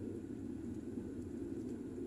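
Steady road and engine noise of a car driving at road speed, heard from inside the cabin as an even low drone.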